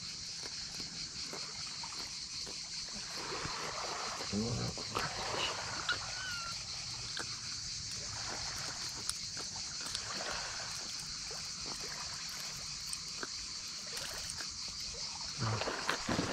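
A steady high-pitched hiss, with scattered small clicks and knocks. A brief low murmur of a man's voice comes about four seconds in and again near the end.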